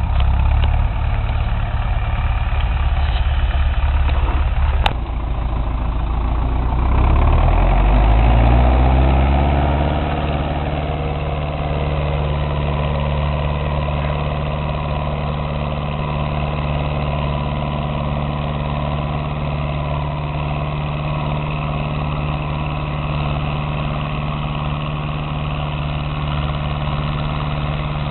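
Ursus C-360 tractor's four-cylinder diesel engine running, with a sharp click about five seconds in. Its revs rise from about seven to ten seconds in, and it then runs steadily at the higher speed.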